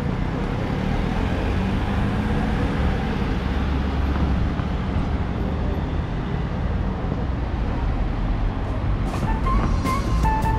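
Steady low rumble of city vehicle traffic, with a few short sharp clicks near the end.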